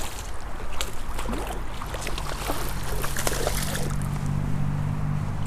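Creek water splashing and sloshing with irregular clicks and knocks as a caught trout is handled at the water's edge, over a low steady hum that comes in about halfway through.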